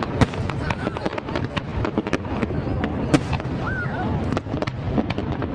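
Aerial fireworks bursting in a rapid, dense barrage of bangs and crackles, two of them louder than the rest, about a quarter second in and about three seconds in. A crowd's voices and shouts carry underneath.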